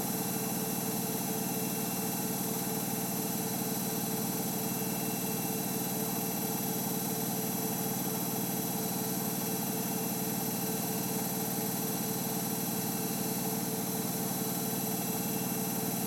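Samsung Eco Bubble WF70F5E2W2X front-loading washing machine on its 1200 rpm final spin, the drum and motor running at a steady speed. There is an even hum with a steady high whine above it, without rising or falling, as in the long hold at full spin speed.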